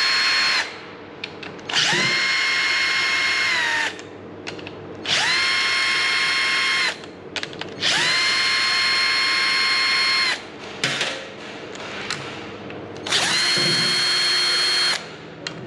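Metabo cordless drill/driver backing out bolts from an electric drive motor's cover: five runs of motor whine, each rising quickly in pitch and then holding steady for about two seconds, with short pauses between. The first run ends just after the start, and light clicks fall in the pauses.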